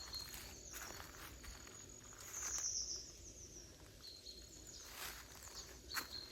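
Slow footsteps crunching through dry fallen leaves, a few separate steps. Short high bird chirps and a thin steady high insect trill run beneath them.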